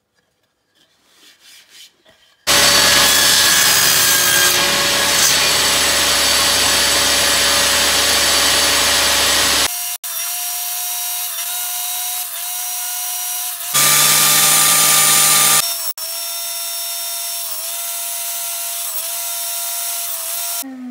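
Table saw running and cutting wood strips. A loud stretch of cutting noise starts suddenly a couple of seconds in, then the steadier high whine of the spinning saw with slight dips, broken near the middle by a second short stretch of loud cutting.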